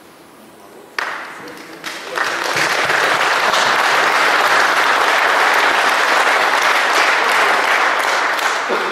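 Audience applauding: the clapping starts suddenly about a second in, builds into a steady round of applause, and tails off near the end.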